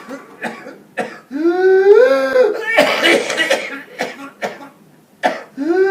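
Coughing: a run of harsh, short hacks and a longer rasping cough in the middle. They are broken by a drawn-out wail that rises and falls about a second in, and another wail starts near the end.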